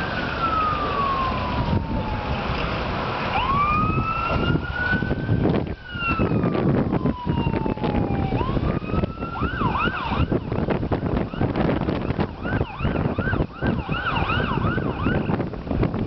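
Emergency vehicle siren in a slow wail, falling and rising in long sweeps, then switching to a fast yelp about nine seconds in, over a steady low rumble.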